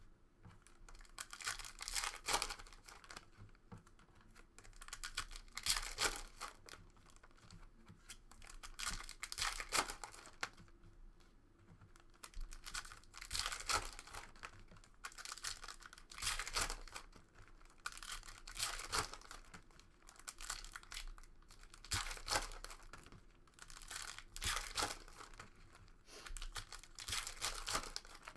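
Foil trading-card packs being torn open and their wrappers crinkled, in repeated bursts of tearing and rustling every couple of seconds.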